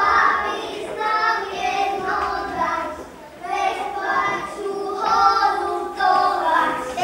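A group of young children singing a folk song together.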